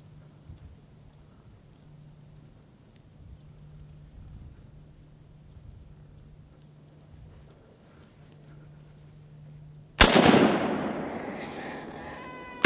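A hunting rifle shot about ten seconds in: one loud sharp crack whose echo rolls away over the next two seconds, with a second shot starting right at the end. Before the shots, faint high chirps repeat about twice a second over quiet woods.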